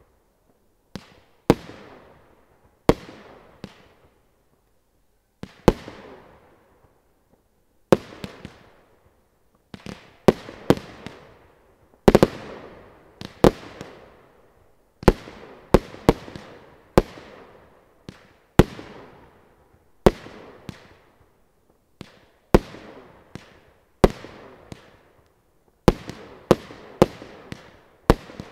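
Original's Brutal Box, a 76-shot consumer fireworks cake, firing shot after shot at about one a second, a few in quick pairs. Each shot is a sharp bang with a tail that fades over about a second.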